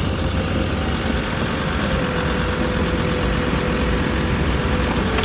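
Land Rover Defender 130 driving along a sandy dirt track, heard from inside the cab: a steady engine and tyre rumble with a faint constant whine above it.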